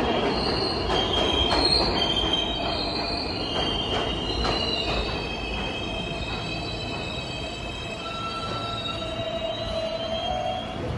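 New York City Subway R160A-1 train braking into a station and slowing to a stop. Its wheels and brakes squeal in several high, wavering tones over a rumble that fades as it slows, and a lower squeal rises in pitch near the end.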